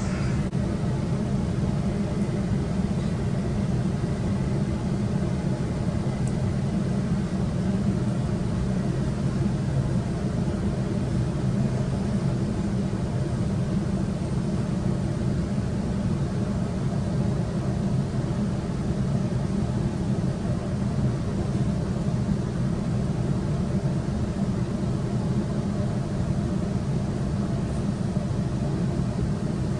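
Steady low rumble heard from inside the carriage of a Sydney Trains electric suburban train as it runs.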